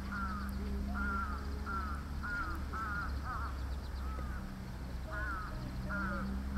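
Birds calling in a steady run of short repeated calls, about two a second, with a brief lull partway through, over a low steady hum.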